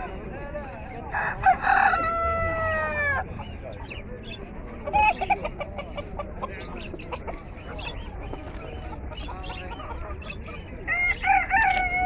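Domestic rooster crowing: one long crow about a second in that drops in pitch at its end, and a second crow near the end, with short chicken clucks in between.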